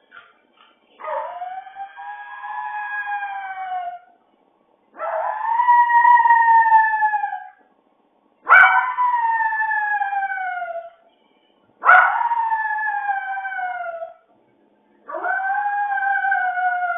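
A small brown poodle howling while left alone at home: five long howls, each rising sharply at the start and then sliding slowly down in pitch, with short pauses between them.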